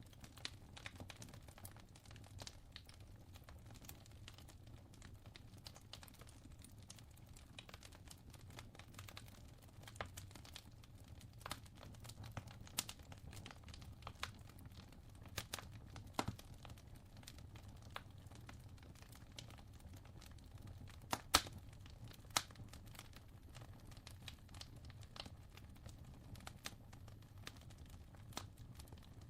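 Fire crackling: irregular sharp pops and snaps over a faint, steady low hum, with two louder pops about two thirds of the way through.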